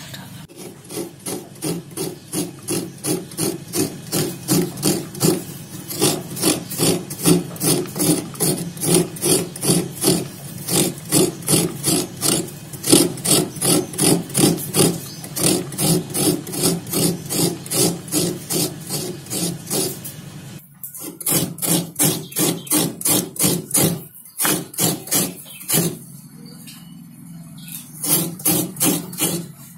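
Fresh coconut being scraped against a serrated metal grater: steady rasping strokes about two a second. A few short pauses come about two-thirds of the way through.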